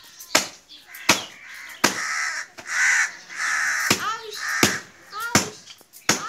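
A crow cawing over and over in harsh calls, about one or two a second, as it scolds a cat in the tree. Sharp clicks break in between the calls every second or so.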